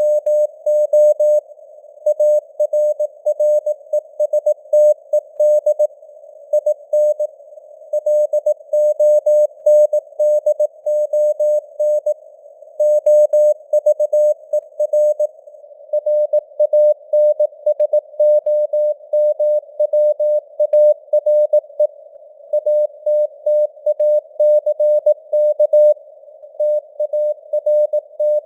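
Morse code (CW) sent at 18 words per minute: a single tone near 600 Hz keyed on and off in dots and dashes, over a narrow band of simulated radio static, with the signal strength fading up and down (QSB).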